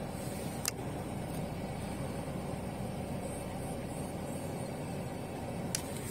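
A car driving, heard from inside the cabin: steady engine and road rumble. There is a sharp click a little under a second in and another near the end.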